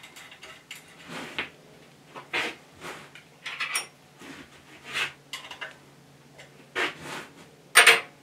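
Metal tools and lathe parts handled on a workbench: irregular clinks, knocks and short scrapes, the loudest near the end.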